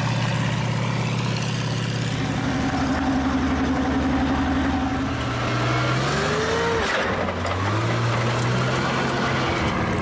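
Tank running and moving, its engine revving up and down, with a rising whine about six seconds in.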